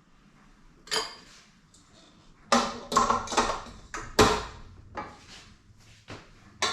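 A kitchen utensil clinking, knocking and scraping against a mixing bowl while sugar and vegetable shortening are worked together: a single knock about a second in, then a quick run of sharp clatters from the middle on.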